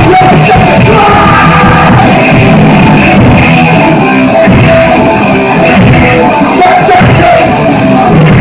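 Hardcore punk band playing live at full volume, recorded so loud that the sound is pressed flat against its ceiling.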